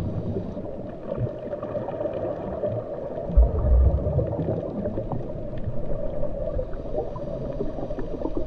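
Underwater ambience sound effect: a steady gurgling, bubbling wash with a deep rumble and a low thud about three and a half seconds in.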